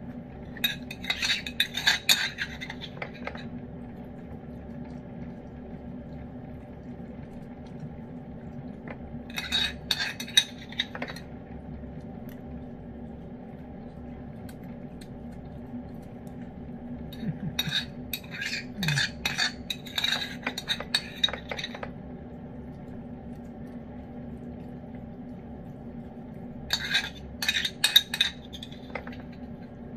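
A spoon scraping and clinking against a bowl of wet cat food pâté in four short bouts, over a steady low hum.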